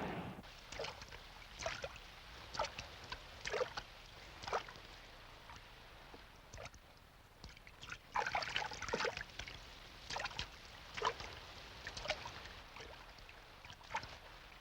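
Water splashing and sloshing in short, irregular bursts, with a busier cluster a little past the middle.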